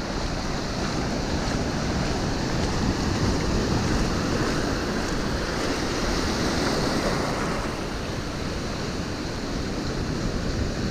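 Ocean surf washing up and back over shallow sand, swelling louder a few seconds in as a wave runs up, then easing.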